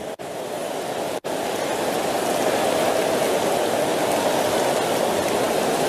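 A large congregation praying aloud all at once: a steady mass of many voices with no single voice standing out, growing slightly louder. The sound drops out twice, very briefly, in the first second and a half.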